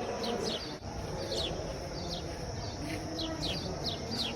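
Small birds chirping: many short chirps, each falling in pitch, a few each second, over a steady low background hum.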